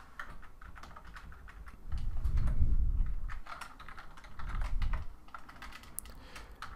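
Typing on a computer keyboard: irregular key clicks as a command line is edited, with two low rumbles about two and four and a half seconds in.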